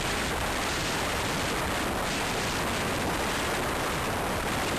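Steady rush of wind noise in a moving car, an even hiss from deep rumble to high treble with no clear engine note.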